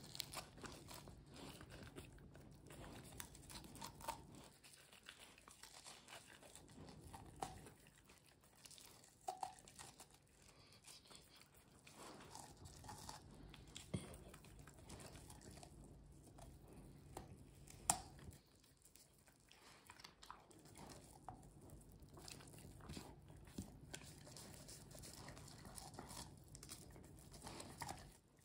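Golden retriever gnawing and biting kernels off a piece of corn on the cob held in a hand: faint, scattered crunches and clicks at an uneven pace, the loudest about 18 seconds in.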